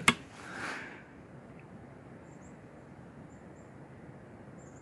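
Sharp metallic clicks at the very start as the RTI Priest air rifle's side lever is worked to single-load the next pellet, followed by a brief rustle of handling. Then a low steady background with a few faint high chirps while the rifle is held on aim.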